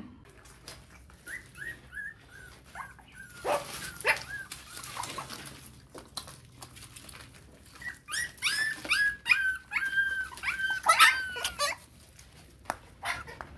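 Puppies whimpering and squealing while nursing from their mother, in short, high cries. A few come about a second in, then a dense, louder run of them from about eight seconds.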